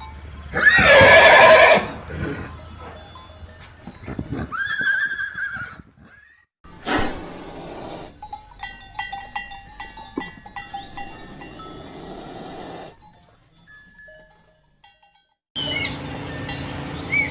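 A series of different recorded animal calls, one after another with short gaps between them. The loudest is a long pitched call about a second in.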